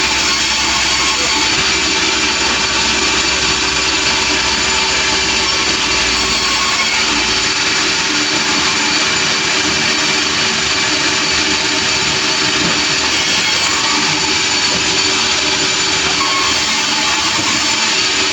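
Engine-driven sawmill running steadily and loudly, its saw blade cutting through a large log.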